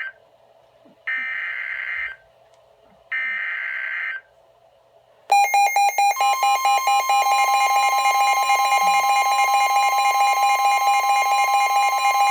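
NOAA weather radio receiving an emergency alert. First comes the end of one burst of digital SAME header data, then two more bursts about a second long each, each followed by a pause. About five seconds in, the radio's alert alarm starts, a rapid pulsing electronic beep, and a steady high tone joins a second later. The alarm marks an incoming severe thunderstorm warning.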